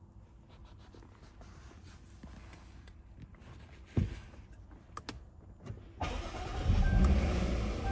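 Push-button start of a Jaguar XE 35t's 3.0L supercharged V6. There is a sharp click about halfway through as the start button is pressed, then a few light clicks. The engine cranks and catches near the end, flaring up loudly before easing back.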